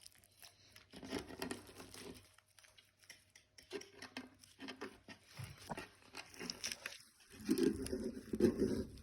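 Hands mixing and kneading slime with foam clay: soft, uneven crinkling and squishing, loudest near the end.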